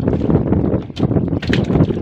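Wind buffeting the microphone over choppy sea, a steady low rumble, with irregular sharp knocks and splashes of small waves slapping the hull of a small wooden boat.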